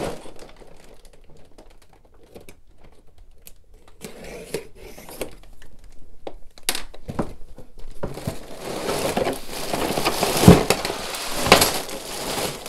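A large cardboard LEGO set box being opened by hand: scattered light taps and scrapes on the cardboard at first, then from about eight seconds in, plastic parts bags rustling and crinkling as the contents are exposed, with a sharp knock about ten seconds in.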